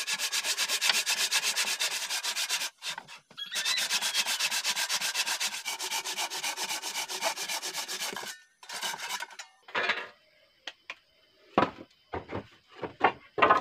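Handsaw cutting through a sal (Shorea robusta) log in fast, even push-pull strokes, about four or five a second, with a short pause about three seconds in, stopping about eight seconds in. A few scattered knocks follow near the end.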